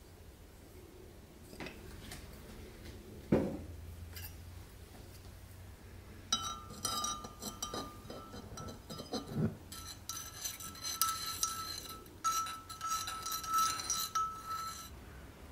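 A metal teaspoon stirring tea in a ceramic mug, clinking against the inside and setting the mug ringing, in three spells from about six seconds in. Before that, a few single knocks, the loudest a sharp one about three seconds in.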